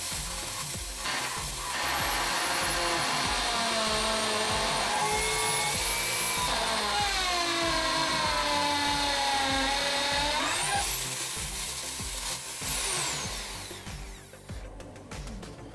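Electric drill in a drill press stand running a hole saw through chipboard: the motor's pitch sags as the saw bites under load and climbs back about ten seconds in as the load comes off, then the drill is switched off and winds down about two seconds later.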